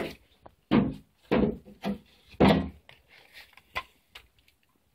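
Pump-action spring airsoft shotgun being worked and fired point-blank at a thin wooden shield: four loud wooden clacks and knocks in the first two and a half seconds, then a single sharp click. The BB does not go through the wood.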